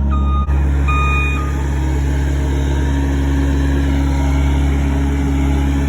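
Skid steer engine running steadily under load while the machine works, with two short high beeps in the first second and a half.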